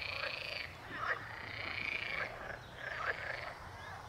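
Frogs calling at the pond: a steady trilling chorus, with a few short separate calls standing out about one, two and three seconds in.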